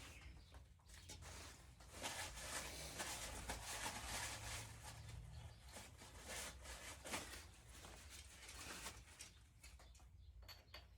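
Faint, irregular scratching and rustling of dirt being cleaned out of a bolt hole in an engine without compressed air, with scattered small clicks.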